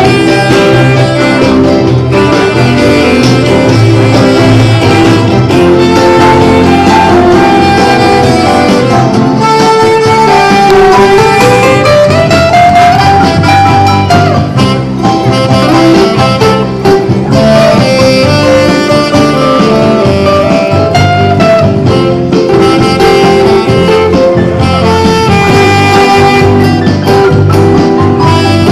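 Live band playing an instrumental melody: a sustained lead line, with one note sliding up about a third of the way in, over steady bass and chordal accompaniment.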